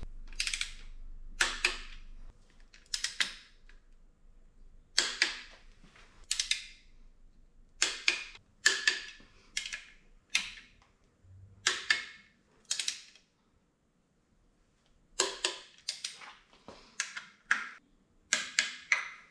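Torque wrench clicking as the ARP bolts of a Ford Voodoo V8's front engine cover are tightened to 24 foot-pounds: a series of sharp clicks in uneven groups, about twenty in all.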